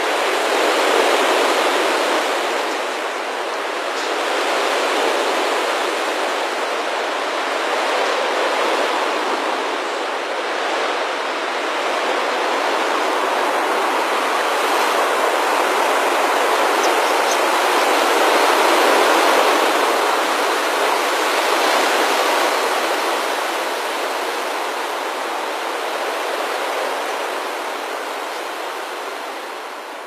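Rushing whoosh of the wings of a huge flock of starlings in murmuration, swelling and easing in waves and fading near the end.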